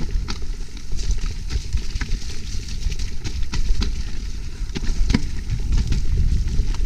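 A Trek Slash 8 mountain bike ridden down a rough, muddy trail: tyres rumbling over the ground, with frequent sharp clicks and knocks of the chain and frame rattling over bumps.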